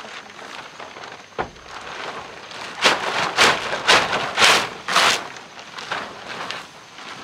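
A sharp knock, then about five loud rasping strokes roughly half a second apart, dying away into fainter ones.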